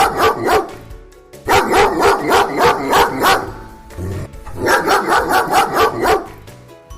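A dog barking rapidly, in three quick runs of barks at about five or six a second, with short pauses between them.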